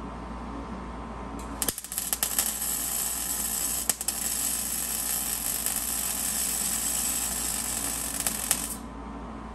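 MIG welder arc crackling as a bead is laid on steel. It starts about a second and a half in with a sputtering patch, settles into a steady crackle, and cuts off abruptly shortly before the end.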